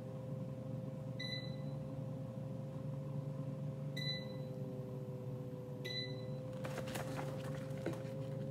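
Air fryer's touch control panel beeping three times, short high beeps as its buttons are pressed, over the steady hum of the running fryer. Paper rustling starts near the end.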